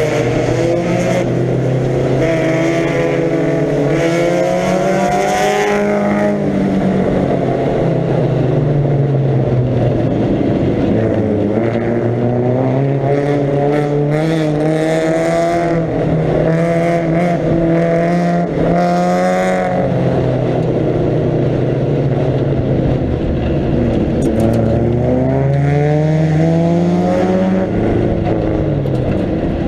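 1937 Riley 12/4 Sprite Special's 1.5-litre four-cylinder engine heard from the open cockpit at racing speed, the revs climbing over long pulls and dropping sharply about six seconds in and again about twenty seconds in, then climbing once more and falling near the end. The preselector gearbox has lost second gear, so the car is run on first and third only, giving long pulls and odd gear changes.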